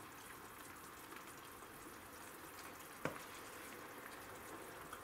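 Thick tomato and vegetable dressing simmering faintly in a frying pan while a wooden spatula stirs it; one sharp knock about three seconds in.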